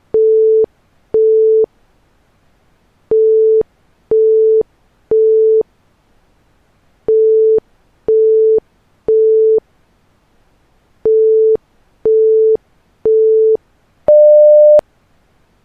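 Synthesized electronic alert tone: beeps at one steady pitch in groups of three, a group every four seconds in a temporal-three pattern like an evacuation alarm, then one longer, higher-pitched beep near the end.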